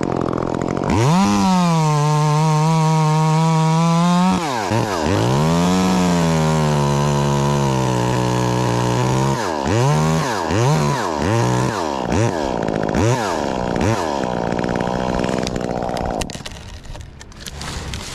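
Two-stroke chainsaw cutting into wood: it revs up and its pitch settles lower and steady under load through two long cuts, then gives a run of short throttle blips. The engine sound falls away about two seconds before the end.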